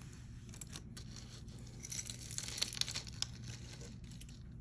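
Packaging crinkling and rustling with scattered small clicks as jewelry is handled, heaviest for a second or so near the middle.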